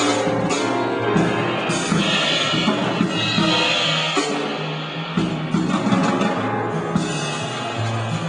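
Live jazz improvisation: a drum kit with cymbals over held low bass notes and other instruments.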